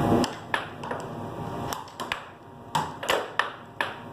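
Air hockey puck striking the mallets and the table's rails: about eight sharp, irregular knocks, some with a short ring after them.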